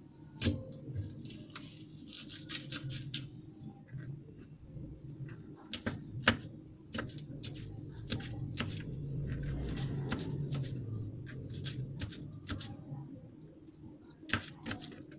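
Serrated kitchen knife chopping green chillies on a plastic cutting board: irregular sharp taps of the blade striking the board, with a quick run of taps about two and a half seconds in and scattered ones after.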